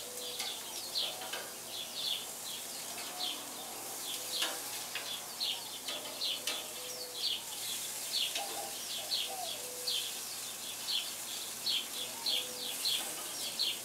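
Small birds chirping over and over, short falling chirps about twice a second, over a steady high hiss of food sizzling on a gas grill.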